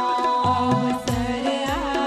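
Indian devotional background music: a steady beat of deep drum strokes that slide down in pitch, under held tones and a wavering melodic line.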